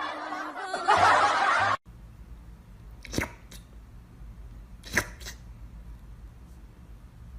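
Laughter over music that cuts off abruptly about two seconds in, followed by a low steady hum with a few short sharp clicks, in two pairs.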